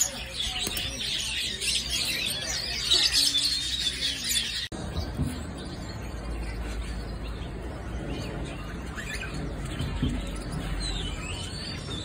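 Many caged birds chirping and twittering together in a dense, busy chorus. After about five seconds it drops abruptly to sparser, fainter chirps over a low background rumble.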